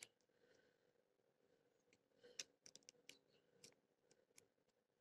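Faint small metallic clicks of a lock pick and tension wrench working the pin stack of an old Titan padlock, with a quick run of ticks about two to four seconds in.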